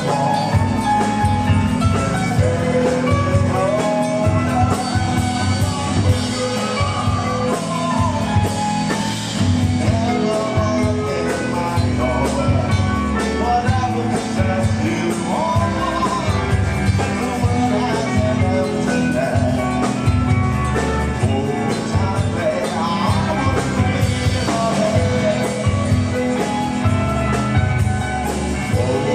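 Rock band playing a song: a singing voice over guitar, bass and drums, loud and continuous.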